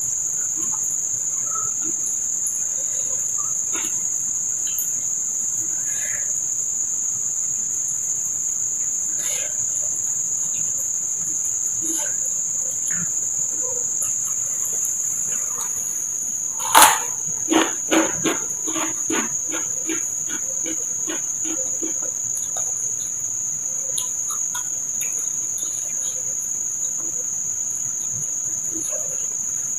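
Crickets chirring in a steady, unbroken high-pitched drone. About halfway through, a single loud knock is followed by a run of fainter bounces coming quicker and quicker until they die away, as of a small hard object dropped and bouncing to rest.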